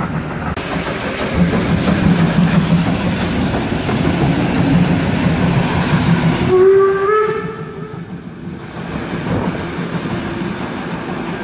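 Steam locomotive passing close by: a loud steady hiss of steam over a low rumble, cut off about seven seconds in by a short whistle blast that rises slightly in pitch, then quieter running as the train goes past.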